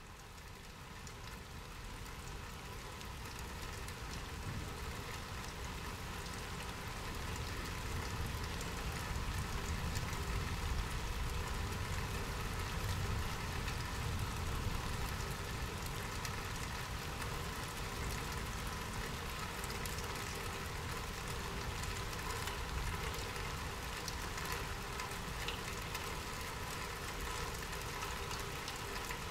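Steady rain falling, with a dense patter of drops over a low rumble, fading in over the first several seconds and then holding steady.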